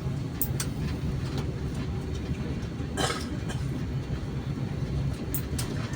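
Airliner cabin noise: a steady low rumble with scattered light clicks and a brief sharper noise about three seconds in.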